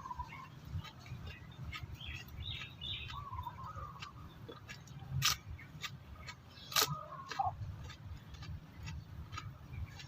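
Chewing raw, crunchy bitter gourd: a run of crisp crunches and mouth clicks, two sharper crunches a little past the middle. Short chirping bird calls sound in the background.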